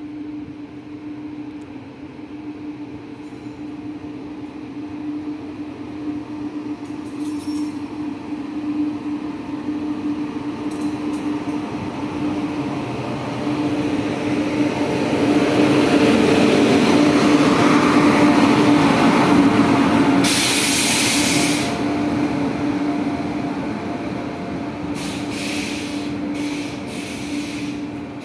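Paschim Express, hauled by a WAP-7 electric locomotive, pulling into the station: the train noise grows as the locomotive approaches and is loudest as it passes, a little past the middle, then the coaches roll by somewhat quieter. A short hiss comes about twenty seconds in, and a few sharp clicks near the end.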